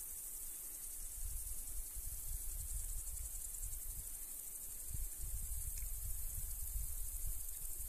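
Steady high-pitched insect chorus from the meadow grass, with low wind rumble on the microphone that gusts harder from about a second in and again near the end.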